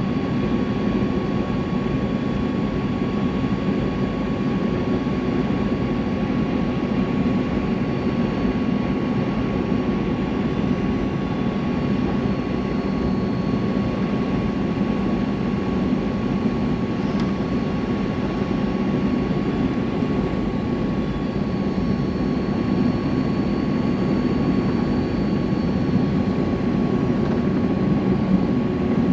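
Steady cabin noise of a Boeing 737-800 jet airliner on final approach to landing: engine and airflow noise with a thin steady whine over it, heard from inside the passenger cabin. It grows slightly louder in the last few seconds as the plane comes over the runway.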